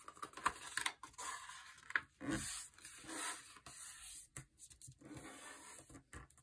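A sheet of cardstock being folded in half and pressed flat on a wooden tabletop: stiff paper rustling and scraping in short, irregular bursts.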